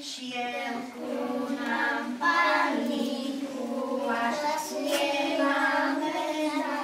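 A group of young children singing a song together, holding long notes.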